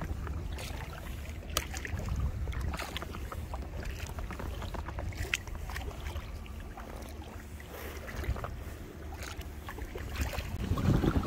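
Double-bladed kayak paddles dipping into lake water from an inflatable kayak, with scattered splashes and drips, over wind rumbling on the microphone that grows stronger near the end.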